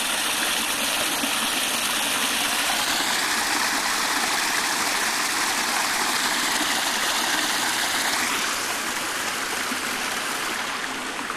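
Creek water spilling over a small rock ledge: a steady rush of running water that gets a little quieter about eight seconds in.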